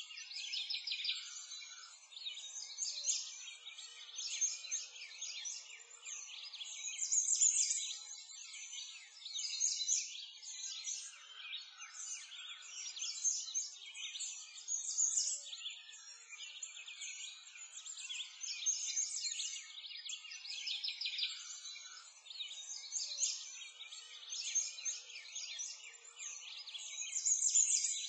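Many small songbirds chirping and twittering together in a dense, continuous high-pitched chorus, with nothing low beneath it.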